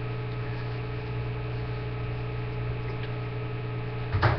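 Steady electrical mains hum, a low buzz with several steady tones above it, with one short brief noise near the end.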